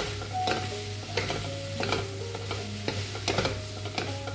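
Metal spatula stirring and scraping vegetables around a hot pan in sizzling oil and soy sauce. There are irregular knocks and scrapes about twice a second, each often followed by a short metallic ring from the pan.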